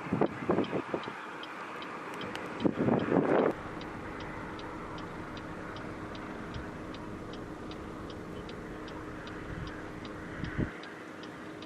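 Inside a car, an indicator flasher clicks evenly, about three clicks a second, over the steady hum of the idling car. A few loud bursts of rushing noise come in the first three seconds or so.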